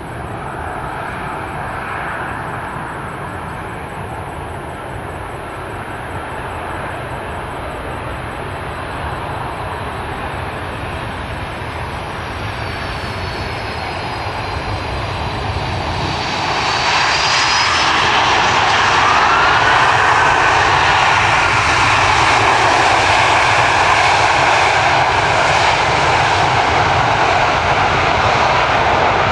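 Four-engine widebody jet airliner on landing approach. Steady jet noise builds and grows louder about 17 seconds in as it comes close, with a thin engine whine falling in pitch.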